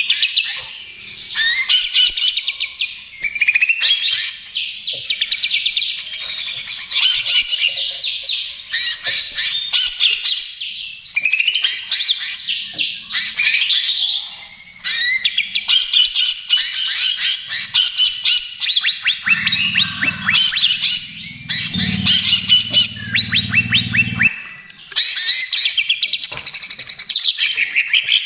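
Cucak ijo (green leafbird) singing a fast, chattering song of quick sweeping notes, delivered in long unbroken phrases with brief pauses between them.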